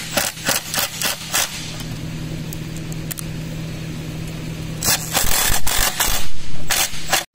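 Cordless drill with a long extension and T25 bit driving screws into a recliner's mechanism and base: a run of clicks at first, then the motor running steadily for about three seconds, then louder irregular scraping and rattling from about five seconds in as the screws are driven home.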